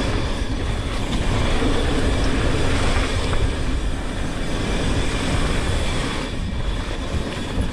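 Mountain bike descending a dirt trail, heard from a GoPro worn by the rider: a steady, loud rumble of tyres on dirt, rattling of the bike and wind on the camera's microphone.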